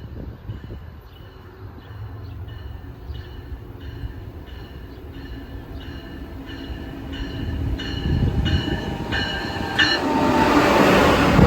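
A train approaching with a bell ringing about twice a second, growing steadily louder. Near the end the rumble and wheel noise of the train rise and become the loudest sound.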